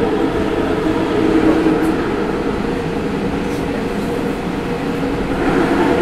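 Interior running noise of a Hanshin 9000 series electric train in an underground tunnel: a steady rumble of wheels and running gear with a low hum.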